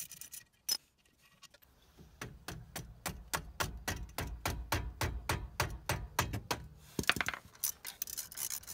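Mallet tapping rapidly on a ratchet and T55 Torx socket held on a brake caliper bolt, about five blows a second for some four seconds, to break the bolt loose. Near the end, rapid ratchet clicking as the bolt is turned.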